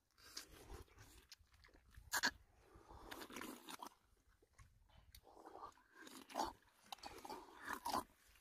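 Irregular crunching and crackling as a fruit's fibrous husk is pried and broken open by hand, with the sharpest crack about two seconds in and more near the end.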